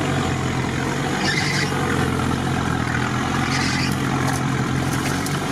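Off-road 4x4 engine running steadily at low revs, heard from inside the cab while crawling along a rough track, with a few short rustling scrapes of branches brushing the body.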